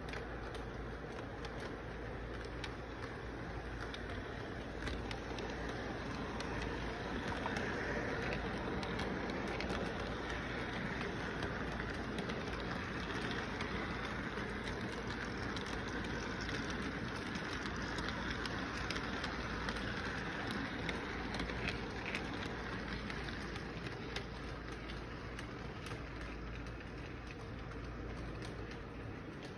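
Model intermodal train rolling past on its track: a steady rumble with a faint clatter of wheels, swelling as the cars pass close and easing off near the end.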